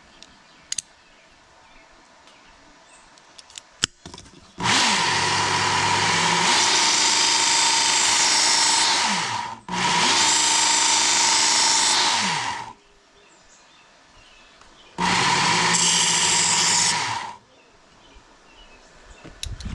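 Work Sharp belt grinder running in three bursts as a Leatherman replacement wire-cutter insert is ground down to fit: about five seconds, then three, then two, with a steady whine. The motor audibly spins up and winds down at the start and end of each run.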